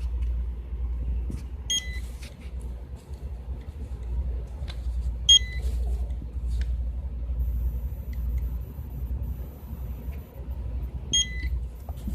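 Checkout barcode scanner beeping three times, short high beeps several seconds apart, each one a scan registering. A steady low rumble runs underneath.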